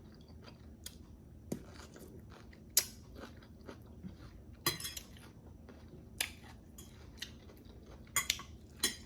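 A person chewing crispy fried chicken wings close to the microphone, with a few irregular sharp crunches, the loudest about three and five seconds in.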